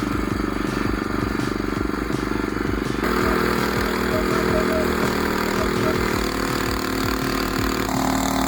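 The small engine of a homemade rail-guided log saw, running steadily during a cut. Its tone changes abruptly about three seconds in and again near the end.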